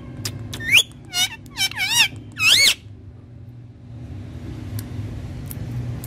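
Indian ringneck parakeet calling: about five short warbling whistles in quick succession, each wavering sharply up and down in pitch, over roughly two seconds.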